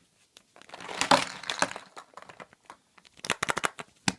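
Crinkling and crackling as a surprise egg's wrapper is unwrapped, with bursts of sharp clicks about a second in and again past three seconds.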